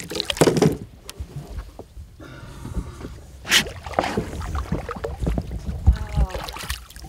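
Water splashing and knocking at the side of a flats skiff as a hooked bonefish is brought alongside and grabbed by hand. Several sharp splashes stand out, about half a second in and again around three and a half seconds, over a low rumble.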